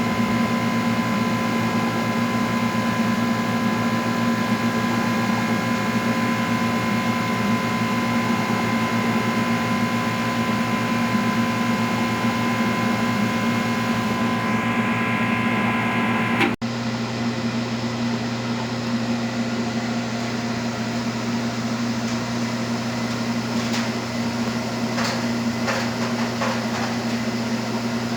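Steady machine hum with several steady tones from a running high-vacuum coating machine. There is an abrupt cut about two-thirds of the way through, after which the hum continues slightly changed, with a few faint clicks near the end.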